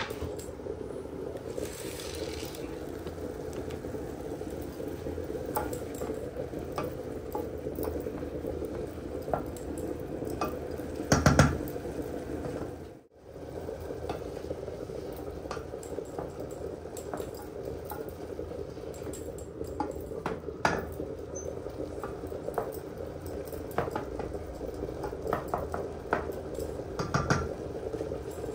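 Mushrooms cooking in a steel pot as they are stirred with a wooden spoon: light sizzling, with scattered knocks and scrapes of spoon on pot, over a steady hum. One louder knock comes about eleven seconds in.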